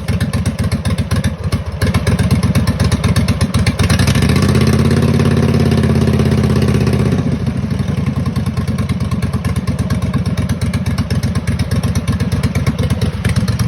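Kohler Command V-twin engine on a riding race mower running just after starting, a rapid even chugging. Partway through, it holds a louder, steadier note for about three seconds, then settles back to its rougher running.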